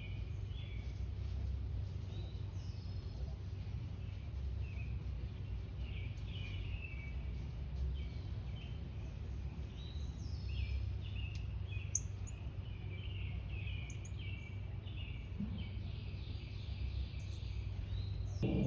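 Small songbirds chirping, many short down-slurred chirps overlapping throughout, over a steady low rumble.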